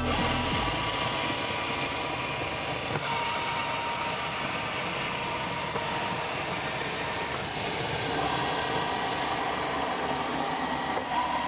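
Eureka commercial espresso grinders grinding coffee beans into a portafilter: a steady motor whir with the rasp of the burrs, its tone changing a couple of times as different grinders run.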